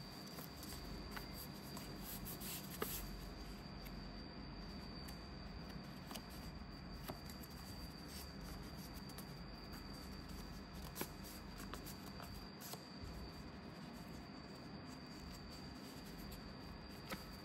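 Faint rustling and rubbing of a folded paper airplane being handled and creased, with scattered soft paper taps and clicks.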